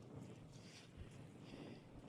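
Near silence, with faint wind noise.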